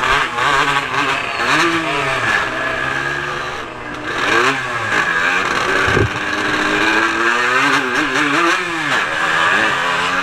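150cc racing motorcycle engine heard from on board the bike, revving hard and then dropping in pitch several times as it shifts and brakes for the corners of a street circuit.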